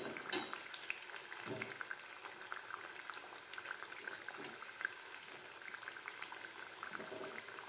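Thekua deep-frying in a steel kadai of hot oil on a low flame: a steady, soft bubbling sizzle of fine crackles. A couple of light clicks come near the start and about one and a half seconds in.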